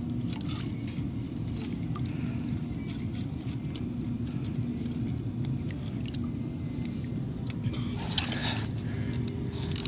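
Handling noise: faint scrapes and clicks as fishing tackle and the catch are handled, over a steady low rumble, with a louder scraping burst about eight seconds in.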